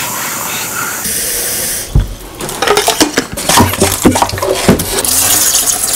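Water running from a kitchen mixer tap into a plastic spray bottle for about two seconds, then a run of clicks and knocks as the bottle is handled.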